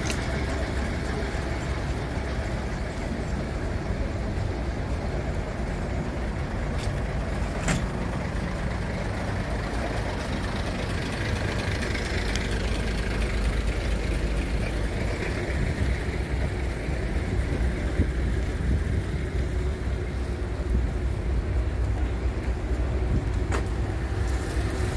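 Heritage diesel multiple unit's underfloor diesel engines idling at a platform: a steady low rumble, with a couple of sharp clicks about eight seconds in and near the end.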